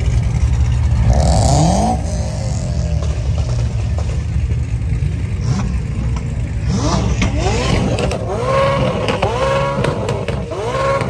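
Car engine revved in repeated quick blips, each rising and falling in pitch, over a steady low rumble of idling engines. One rev comes about a second in, then a fast series of blips over the last few seconds.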